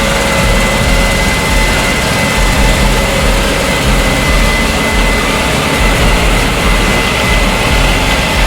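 Case IH 7240 Axial-Flow combine harvester running steadily while harvesting, a loud, dense machine noise with a steady high whine over it.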